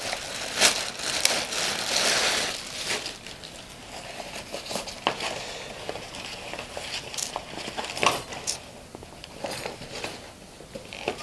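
Clear plastic bag crinkling as a folded nylon-fabric softbox is slid out of it, densest in the first few seconds, then the fabric rustling as it is handled and opened out, with a few small clicks.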